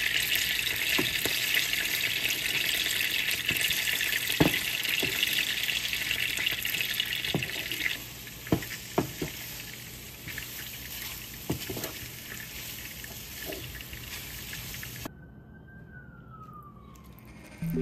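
Whisked eggs and tomato wedges sizzling in a nonstick frying pan, with a spatula scraping and knocking against the pan as the eggs are scrambled. The sizzle drops to a quieter hiss about eight seconds in, and the last few seconds are quiet.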